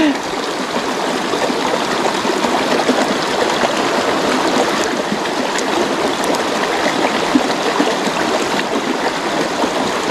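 Shallow rocky stream flowing and trickling over stones in small riffles, a steady even water sound close by.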